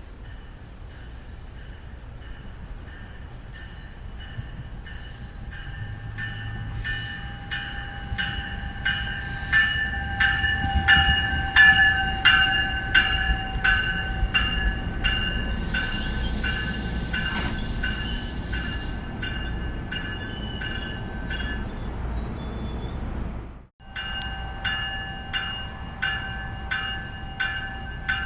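A train's warning bell ringing steadily, a little under two strikes a second, growing louder as the train draws near over the rumble of the train. The sound drops out briefly about 24 seconds in, then the bell continues.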